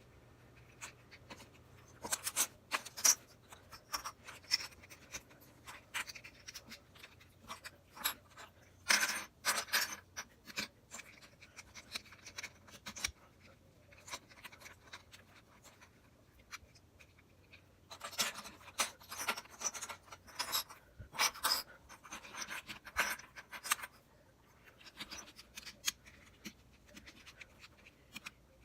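Plastic Rubik's Cube pieces clicking and scraping as the cube is handled and taken apart, in irregular clusters of sharp clicks with quieter gaps between.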